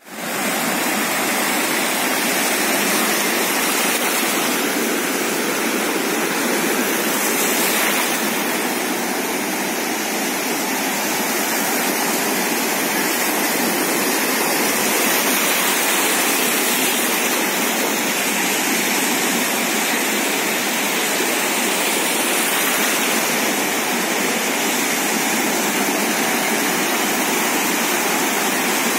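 Sea water rushing against the shore as a steady, even hiss, with no separate wave breaks standing out.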